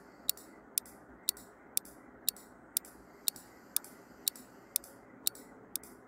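Clock-tick sound effect for a quiz countdown timer: sharp, even ticks about two a second over a faint steady hiss, marking the seconds left to answer.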